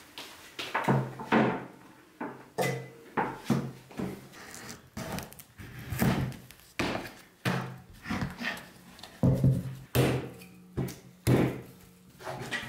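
A series of irregular knocks and thuds, about one or two a second, each ringing briefly.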